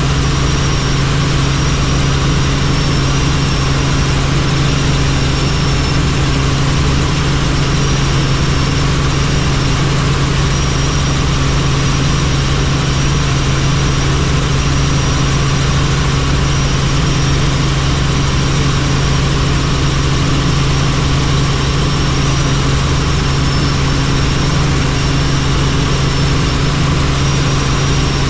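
Helicopter in flight: steady turbine and rotor noise with a strong low hum and a faint high whine that comes and goes.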